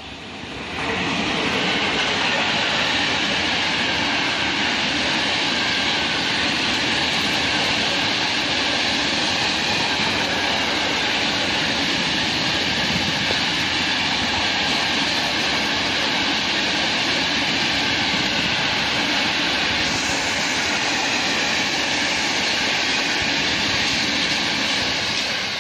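Freight train passing close by: an electric locomotive followed by a long string of open freight wagons rolling past on the rails. The noise rises sharply about a second in, stays loud and steady, and starts to fade near the end.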